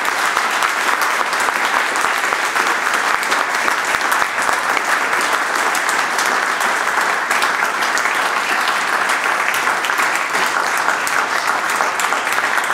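Audience applauding steadily, many hands clapping at an even level.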